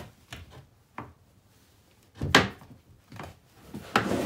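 Plastic knocks and thuds as the top tray of a Power Fist plastic service cart is worked and pressed down onto its legs. A few separate knocks, the loudest a sharp thump about two and a half seconds in.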